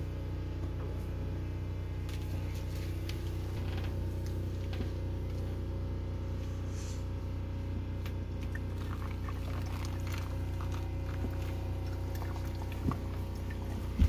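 Brewed coffee dripping and trickling from a pour-over filter into a glass carafe, over a steady low hum. A single knock near the end.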